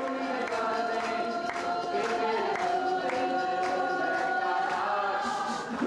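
Group of voices singing in chorus, holding long sustained notes.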